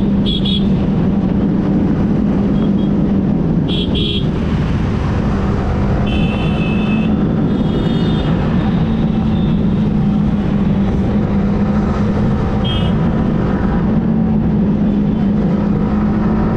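Yamaha R15M motorcycle's 155 cc single-cylinder engine running steadily under way, with road and wind noise. Several short, high-pitched tones cut in briefly, around four seconds in, about six to eight and a half seconds in, and near thirteen seconds.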